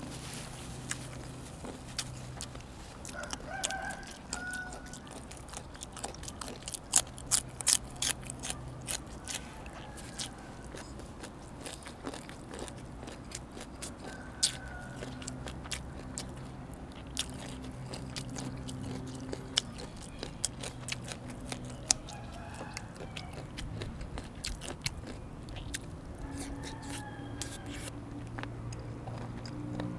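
Close-up chewing and crunching on pork rib bones, with a cluster of sharp crunches about six to nine seconds in. Chickens call briefly in the background a few times.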